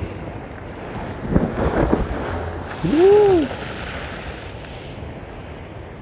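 Storm surf churning and crashing against a seawall, with wind buffeting the microphone; heavy rough surges come about a second in, then a hissing rush of spray. About three seconds in, a short exclamation rises and falls in pitch over the noise.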